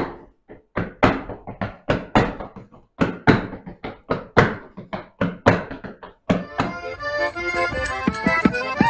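Heavy boots stamping on a hard tiled floor in a folk-dance step pattern, about three stamps a second. About six seconds in, accordion folk-dance music with a steady beat takes over.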